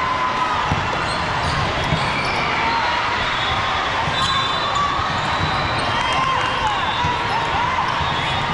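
Sneakers squeaking on a gym floor during an indoor volleyball game, with occasional thumps of the ball and a steady murmur of voices in a large hall.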